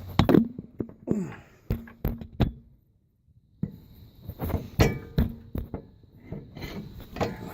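Metal tools and suspension parts knocking and clinking together while a nut is worked onto a ball-joint stud of a car's upper control arm: a series of sharp knocks, some ringing briefly, broken by about a second of silence around three seconds in.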